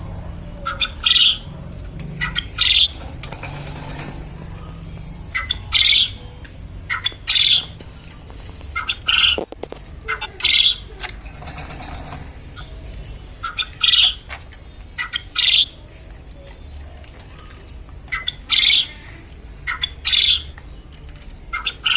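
Male quail calling: short, high-pitched notes in phrases of two or three, repeated every few seconds.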